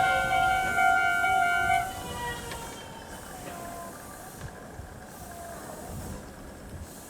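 Level crossing's electronic warning bell ringing with steady, ringing tones, then cutting off about two seconds in as the crossing clears. Quiet background noise with faint tones follows.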